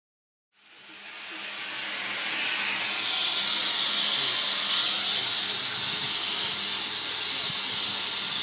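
Gravity-feed compressed-air spray gun hissing steadily as it sprays. It starts about half a second in and builds over about a second to a steady level.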